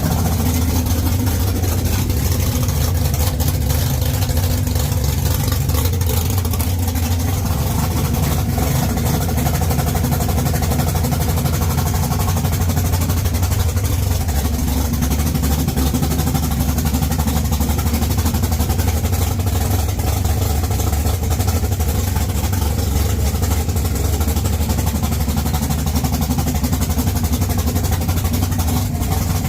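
1969 Camaro drag car's engine running steadily at idle, with no revving.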